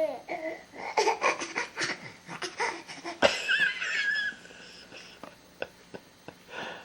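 Laughter in a run of short bursts, then a high, wavering squeal about three seconds in.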